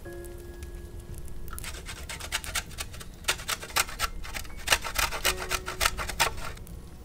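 Horseradish root grated by hand over a bowl of soup: a run of quick rasping strokes that starts about two seconds in and stops near the end. Before it, a short ringing tone.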